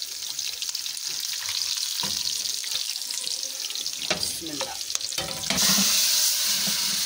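Tadka of garlic, green chilies and cumin sizzling steadily in hot oil in a steel pan, with a few metal knocks near the middle; about five and a half seconds in, a much louder burst of sizzling as the hot oil is poured over the cooked masoor dal.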